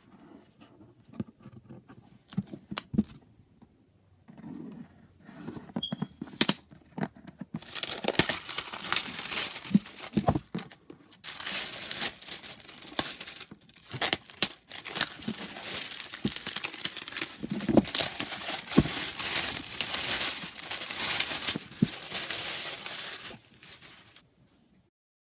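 Packaging being unwrapped by hand: a few light taps and clicks, then about a second in... rather, after several seconds a long stretch of continuous crinkling and tearing of a wrapper that stops near the end.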